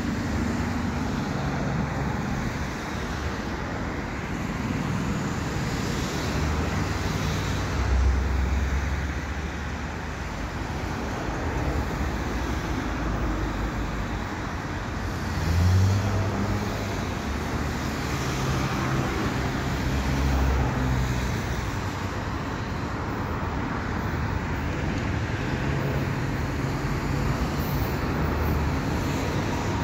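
Steady road traffic: car and truck engines and tyres going by, with louder vehicles passing about a quarter of the way in and again about halfway.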